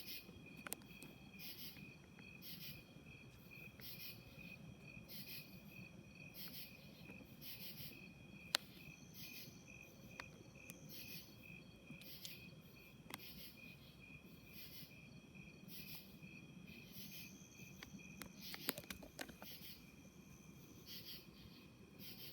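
Faint night chorus of crickets, with a steady pulsing chirp and a high rhythmic pulse about twice a second. Twice, a thin high note is held for about two seconds; these repeated night calls are what the recordist takes for two birds calling back and forth.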